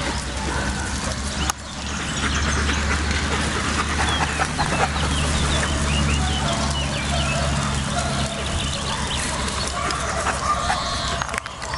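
Birds chirping and calling over a steady low rumble.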